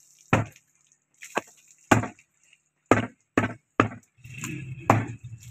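Heavy butcher's cleaver chopping beef on a round wooden log chopping block: about seven sharp chops at an uneven pace, with a short pause after the first. A faint steady hum comes in near the end.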